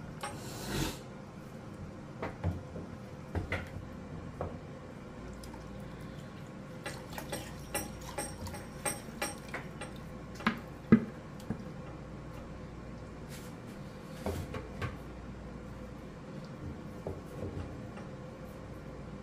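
Wooden spoon stirring thick tomato stew in a stainless steel pot: wet squelching, with scattered knocks and scrapes of the spoon against the pot. Meat stock is poured in partway through. A steady background hiss runs under it all.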